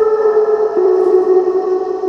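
Gas heater giving off a loud, steady whistling tone with overtones, which steps down slightly in pitch about three-quarters of a second in.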